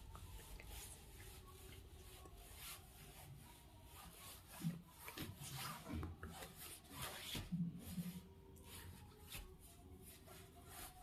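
Faint rubbing and rustling, with a few soft low thumps in the middle.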